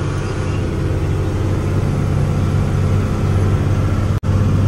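Truck engine running steadily under way, heard from inside the cab, with a deep, steady drone and road noise. It cuts out for an instant near the end and resumes.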